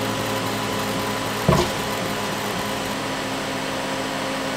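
Ortur Aufero 2 laser engraver running with its LU2-4 laser module lit: a steady machine whir and hum from its fans and motors. A single short knock comes about one and a half seconds in.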